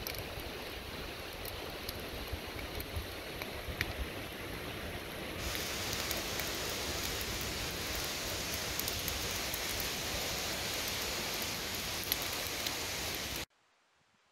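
Small kindling fire of dry twigs crackling, a steady hiss with scattered faint pops. It gets louder about five seconds in and cuts off abruptly near the end.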